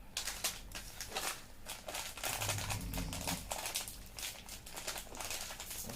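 A sleeping man snoring, with one low snore about two seconds in. Rapid crackling and crinkling clicks run throughout.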